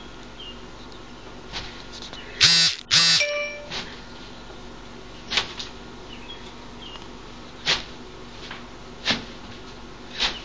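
A cat hiccupping: short, sharp hics about every two seconds, five or so in all. A louder double burst comes a little over two seconds in.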